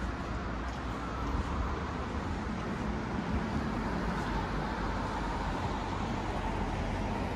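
City street traffic: cars driving along the road, a steady wash of traffic noise with a low hum.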